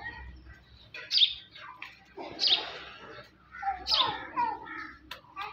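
Chickens calling: three loud, short squawks that fall in pitch, about a second and a half apart, with lower clucks between them.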